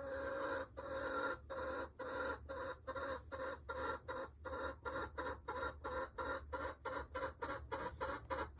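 A backyard hen clucking in a long unbroken run of repeated calls, at first a little under two a second and quickening to about four a second near the end, then stopping abruptly.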